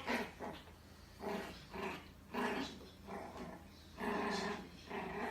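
Bichon Frise puppy growling and giving short yappy barks, in about six separate bursts.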